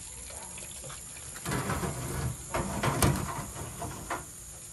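Wire deep-fryer basket clattering and knocking against a metal sheet pan and cooling rack as fried crawfish tails are shaken out. The rattling starts about a second and a half in, with one sharp knock near the middle.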